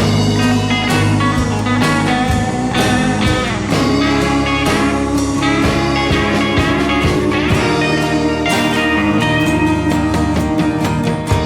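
Background music: a guitar-led rock song with drums and a steady beat, in an instrumental passage between sung lines.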